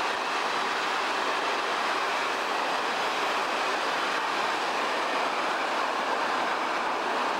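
Express passenger train hauled by a pair of BB 67400 diesel locomotives rolling past: a steady noise of the coaches running on the track.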